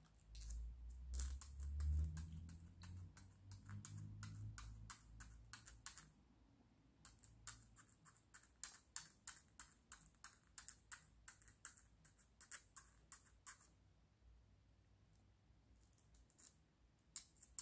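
Faint, quick strokes of a thin metal hand tool against a tiny 3D-printed plastic part, heard as short clicks about two a second. The clicks stop about 14 seconds in and start again near the end. A low rumble runs under the first few seconds.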